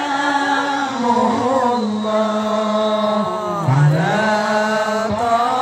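Islamic devotional chanting for the Prophet's birthday (Maulid), sung in long drawn-out notes, with a sliding melisma about two-thirds of the way through.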